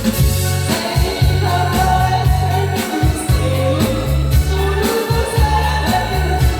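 A singer performing a Korean trot song over a backing track, with a heavy pulsing bass line under the vocal melody; the voice comes in under a second in.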